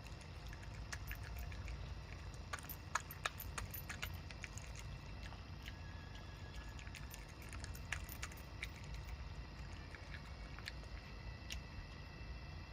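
Low, unsteady rumble of wind on the microphone, with scattered light clicks and clinks, a cluster of them a few seconds in.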